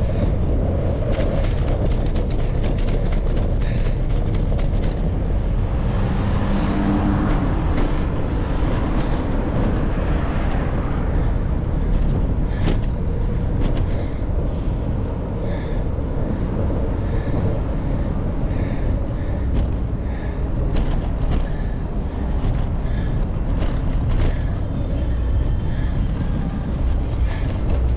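Steady low rumble of wind and road noise picked up while riding a bicycle, with many short sharp clicks and rattles scattered through it.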